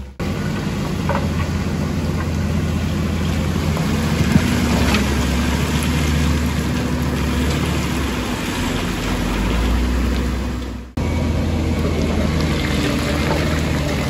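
Wheel loader's diesel engine running steadily as it pushes rock and dirt. The sound drops out for a moment about eleven seconds in, where the footage cuts.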